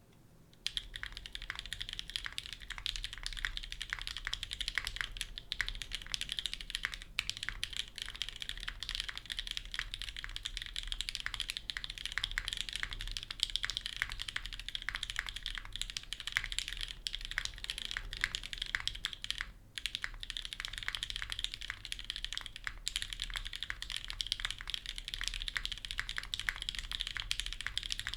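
Continuous fast typing on a Venn custom mechanical keyboard with lubed NK Cream linear switches on a polycarbonate plate, no foam, and GMK keycaps. It is a dense clatter of key presses that starts about half a second in, with a brief pause about two-thirds of the way through.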